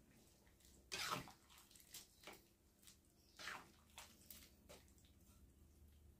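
A metal spatula stirring a wok of vegetables and tofu in coconut-milk broth: faint sloshing and scraping strokes, several in a row, the loudest about a second in.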